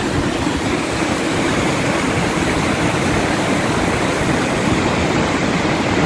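A river in flood carrying a thick load of mud, its silt-laden water rushing steadily over rocks and debris.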